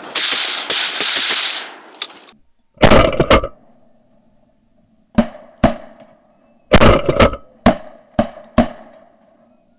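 A volley of shotgun blasts from several hunters firing at ducks over decoys: a quick cluster about three seconds in, two more shots, another quick cluster, then three single shots spaced about half a second apart. The first second and a half holds a loud hiss before the shooting starts.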